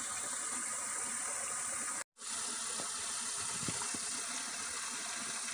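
Steady rushing of a fast-flowing river, with a high, even hiss of insects over it. The sound cuts out completely for a moment about two seconds in.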